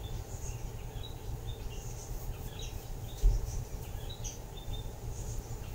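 Birds chirping busily, many short high calls scattered over a low steady hum. A single dull thump about three seconds in is the loudest sound.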